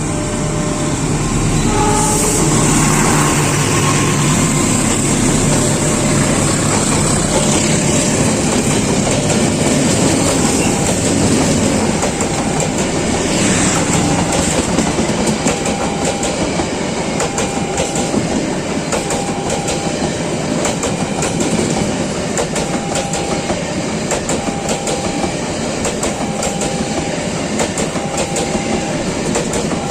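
A passenger train running past, its wheels clicking rapidly over the rail joints. A short repeated tone sounds about every two seconds through the second half.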